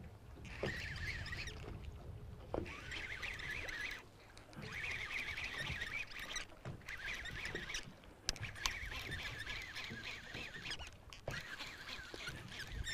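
A fishing reel being cranked in stretches of a second or two with short pauses between them, a faint whirring chatter, as a hooked bass is fought and reeled in.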